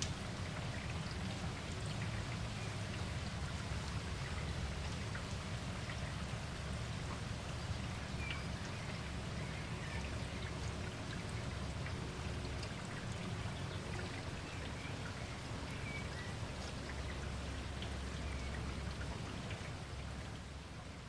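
Steady heavy rain, dense patter with scattered drop ticks over a constant low rumble.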